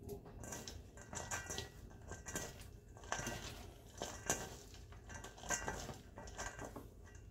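Hands tossing shredded cabbage, carrot and onion in a stainless steel mixing bowl: faint, irregular rustling and crunching of the shredded vegetables, with light clinks against the metal bowl.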